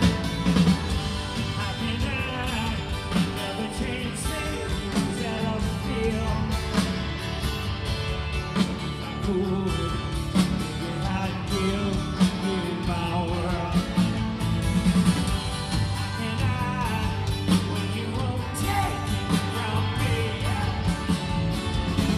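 Live rock band playing, with electric guitar, drums and bass and a male lead vocal singing over them, heard from within the arena audience.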